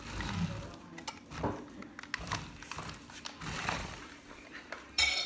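Electric RC car driving, its small motor whirring and its chassis and wheels clattering with irregular knocks. A short, louder burst of whine near the end.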